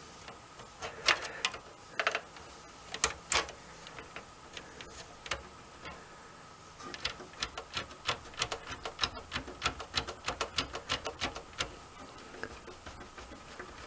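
Small plastic clicks and ticks from the inside of an Xbox 360 DVD drive as fingers work a new rubber drive belt around onto its pulleys, scattered at first and then a quick, busy run of clicks in the second half.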